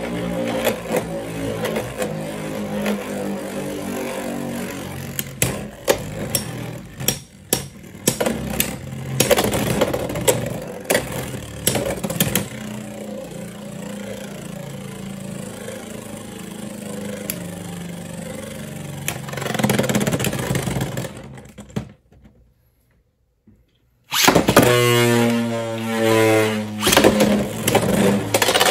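Two Beyblade X spinning tops (Phoenix Rudder 9-70G and Unicorn Sting 5-60B) whirring and grinding around a plastic stadium, with a steady hum and a run of sharp clicking clashes between about 5 and 12 seconds in. The sound cuts out for about two seconds near the end, then a louder, fresh whir of spinning tops starts.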